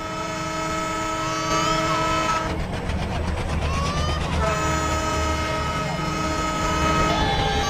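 Locomotive horn sounding two long blasts, a chord of several steady tones, over the low rumble of the train. Short wavering baby cries come in between the blasts.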